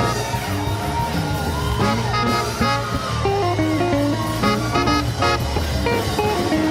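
Live church band playing an upbeat gospel groove, led by electric guitar over bass and drums.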